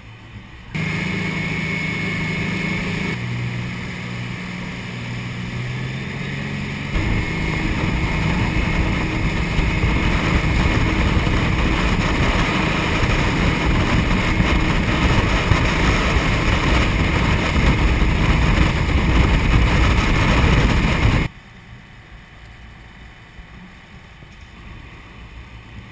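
Rigid inflatable boat's engine running at speed, with wind and rushing water on the microphone. The engine note jumps to a new pitch about a second in, again about three seconds in and again about seven seconds in. Near the end the sound drops off suddenly to a much quieter, steady background.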